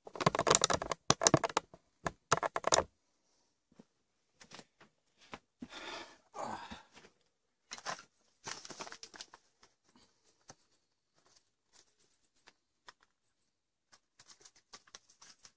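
Hand-work handling sounds: a quick run of loud scraping, rubbing strokes in the first three seconds, then scattered quieter rustling and crinkling of a paper towel and a plastic parts bag.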